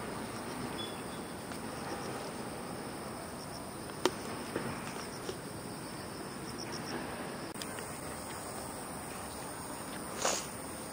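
Steady outdoor ambience of insects chirping, with a faint run of evenly spaced high chirps a little past the middle. One sharp click sounds about four seconds in, and a brief scuff comes near the end.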